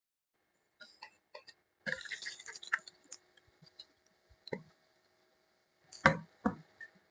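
Kitchen prep sounds: scattered light clicks and knocks, a short clattering, rustling stretch about two seconds in, and a few sharper knocks near the end, the loudest about six seconds in.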